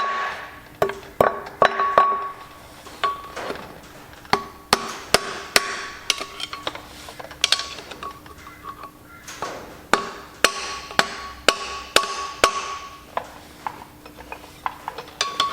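A hammer tapping on metal, irregular sharp strikes about one to three a second, each leaving a clear ringing tone, with some scraping between them. This is metal being struck around the just-fitted flywheel of a Massey Ferguson 135.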